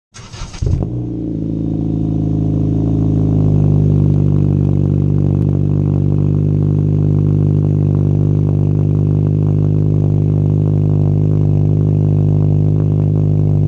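Honda Civic Si's 2.4-litre four-cylinder engine heard at its exhaust, starting up with a short, ragged burst as it catches, then idling steadily on a cold morning, the idle note settling within the first few seconds.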